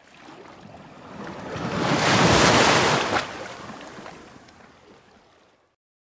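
Surf washing on a beach: one swell of wave noise that builds for about two seconds, peaks, then fades away about five seconds in.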